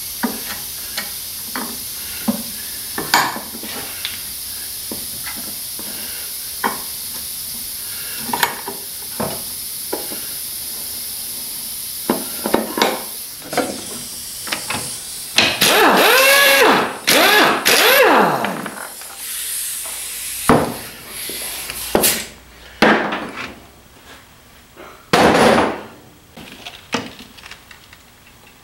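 A steady hiss with light tool clicks, then a pneumatic impact wrench runs on the leaf spring pack for about three seconds, its pitch rising and falling. Sharp metal clanks of steel spring leaves and tools on the bench follow.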